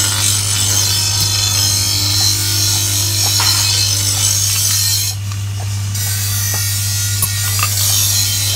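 Bench-mounted electric motor running with a steady hum while a small drill bit on its shaft bores holes through the brass ferrule into a wooden sickle handle, giving a high grinding hiss with small clicks. The cutting noise drops out for about a second just past halfway as the bit is lifted, then resumes.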